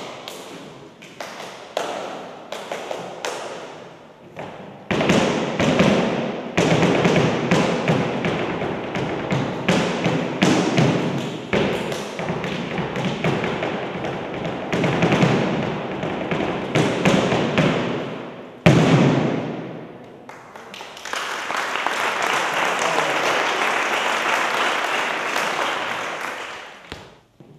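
Flamenco palmas and footwork: hand claps and shoe strikes from heel and toe, a few at first, then a fast, dense run of sharp strikes. About 21 seconds in the strikes stop and applause takes over, fading out near the end.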